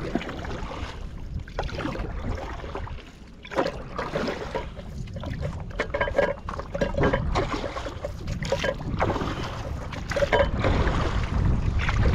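River water splashing and lapping in irregular small bursts, with wind rumbling on the microphone.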